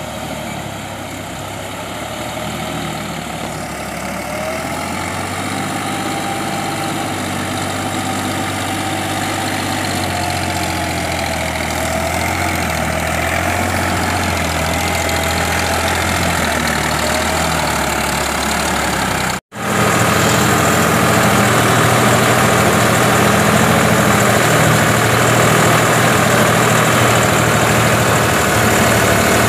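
Deutz-Fahr tractor's diesel engine running steadily while pulling a rotary tiller through a flooded paddy field. After a sudden cut about two-thirds of the way in, the engine is heard up close and louder.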